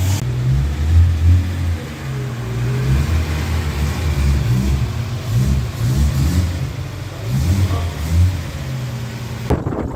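Car engine revving up and down repeatedly, its pitch rising and falling. The sound changes abruptly near the end.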